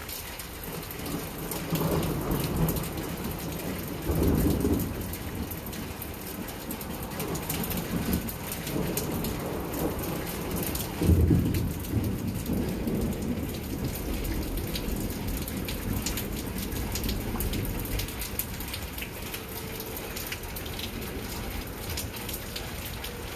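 Thunderstorm: rain falling steadily, with several low rolls of thunder, the loudest about halfway through.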